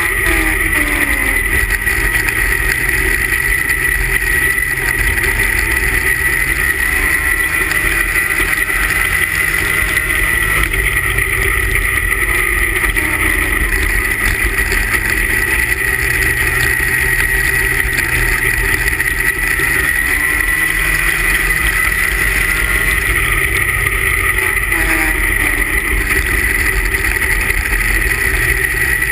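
Super stock 340 racing snowmobile's two-stroke engine running hard at race speed. Its pitch falls and climbs again about three times, with a steady high whine running over it.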